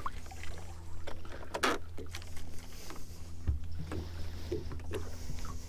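Knocks and clatter of gear in a small fishing boat: a sharp knock a little under two seconds in and a deep thump about three and a half seconds in, over a steady low hum.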